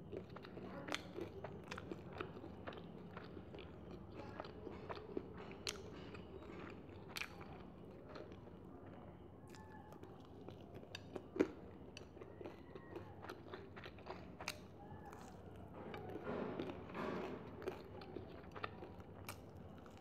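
Close-miked chewing and crunching of batter-fried chicken, with many short crisp bites and one loud crunch about halfway through.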